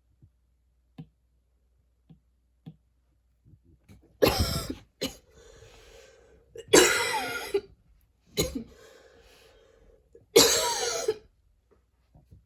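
A person coughing hard in four loud fits, about two seconds apart, each under a second long, with fainter breathy sound between them. A few faint clicks come before the first fit.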